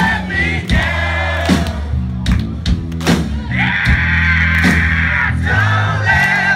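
Rock band playing live, loud, with drums, bass and several voices singing together. About three and a half seconds in, a voice holds one long shouted note for nearly two seconds.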